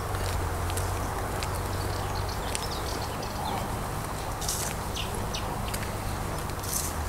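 Outdoor ambience: birds chirping now and then, short high calls, over a steady low background rumble.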